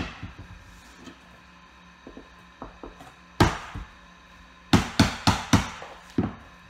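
Rubber mallet knocking vinyl planks to seat their click-lock joints: a few light taps, a hard blow about three and a half seconds in, then a quick run of four blows around the five-second mark and one more just after six seconds.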